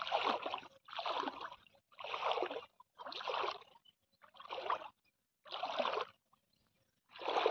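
Footsteps wading through shallow floodwater, a splashing slosh with each stride, about one a second.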